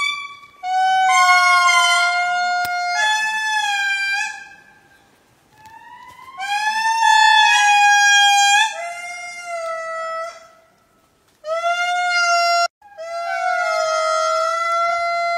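Lemurs calling: a series of about six long, clear, high calls, each lasting one to three seconds and held near one pitch with slight bends, with short pauses between them. Near the end two calls overlap.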